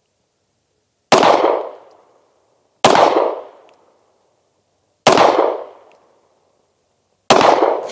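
Four 9mm pistol shots from a SIG P320 X-Five with a 5-inch barrel, firing Sierra 115-grain jacketed hollow points, spaced about two seconds apart, each followed by a short echo that dies away.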